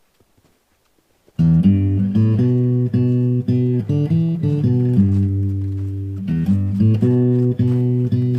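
Near silence for over a second, then music starts suddenly: guitar playing sustained chords with a bass line.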